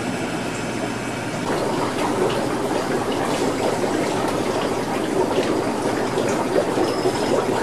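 Aquarium water running and splashing steadily, the sound of tank filtration, growing louder about a second and a half in.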